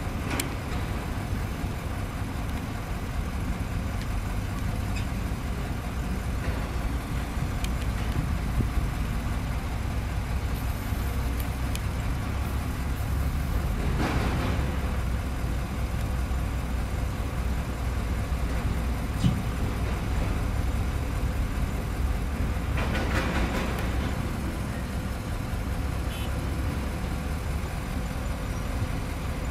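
Hitachi excavator's diesel engine running steadily under load as it works its arm. Twice a short burst of rushing noise rises over it, about halfway through and again near three-quarters.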